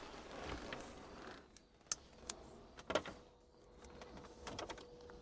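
Faint rustling and a few scattered sharp clicks from hands handling cables and parts, with a faint steady hum underneath.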